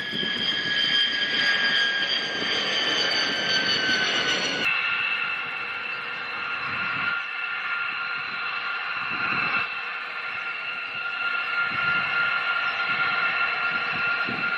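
Jet aircraft in flight: a steady engine whine over a rushing noise, its pitch drifting slightly down, then switching abruptly to a slightly different steady whine about four and a half seconds in.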